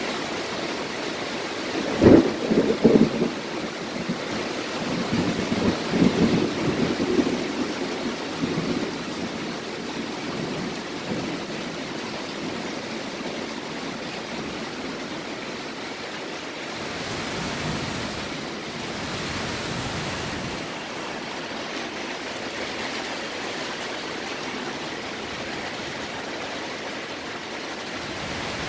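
Heavy thunderstorm rain hissing steadily, with a sudden crack of thunder about two seconds in that rumbles on in waves for several seconds and dies away.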